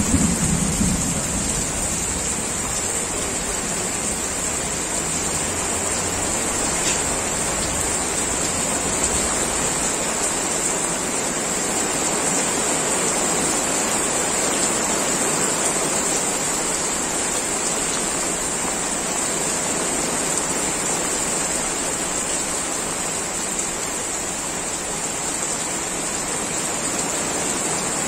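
Heavy rain pouring steadily, an even hiss with no let-up.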